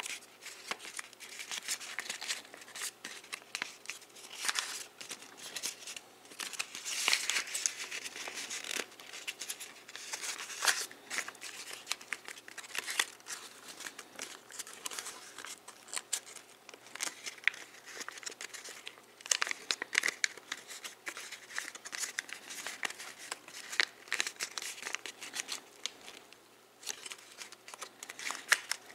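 Folded paper of an origami model crinkling and crackling under the fingers as it is pinched and shaped, in irregular bursts of small crackles with denser stretches now and then.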